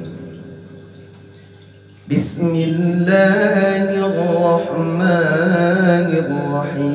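A man's voice chanting Quran recitation (tilawah) in the Jiharkah maqam, sung through a microphone with a long echo. The echo of the previous phrase fades over the first two seconds. A short sharp noise about two seconds in is followed by the drawn-out, ornamented melodic line of the recitation, held to the end.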